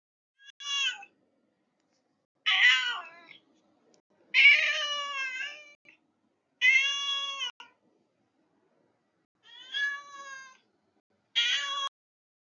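A cat meowing six times, each call separate and a second or two apart.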